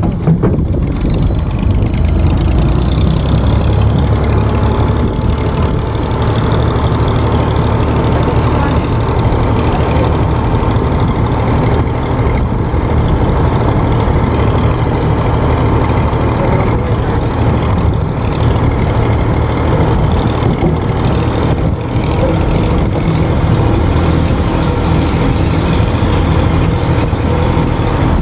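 Forklift engine running steadily with a loud low rumble, heard from on board the machine.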